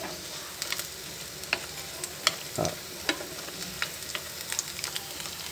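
Shrimp fritters sizzling in shallow oil in a frying pan, a steady hiss with scattered crackles and pops, and chopsticks clicking against the pan as a fritter is turned over. The fritters are golden and nearly done.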